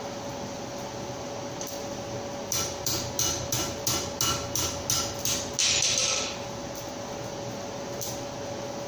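Blacksmith's hammer striking hot iron on an anvil: a quick run of about nine blows, roughly three a second, each with a short metallic ring from the anvil. They are followed by a brief rasping scrape, over the steady hum of the forge blower.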